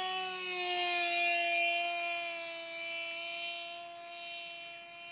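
Electric motor and propeller of a TekSumo flying wing giving a steady whine in low-level flight. The pitch drops slightly over the first couple of seconds, as the throttle eases, and then holds.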